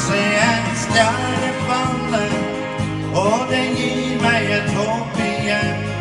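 Live country-style music led by an acoustic guitar, with a melody line that slides up and down in pitch.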